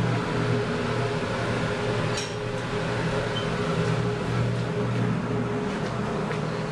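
Steady low electrical hum of a hydraulic elevator at the end of its descent, with a single light clink about two seconds in as the doors open.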